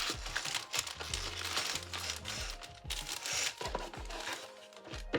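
Plastic bags of LEGO pieces crinkling and rustling as they are handled and taken from the opened box, over background music with a steady bass line.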